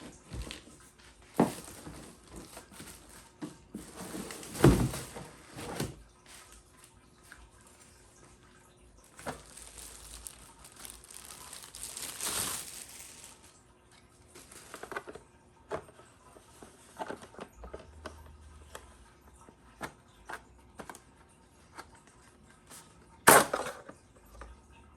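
Packaging and parts being handled: rustling with scattered clicks and knocks, and loud knocks about five seconds in and near the end.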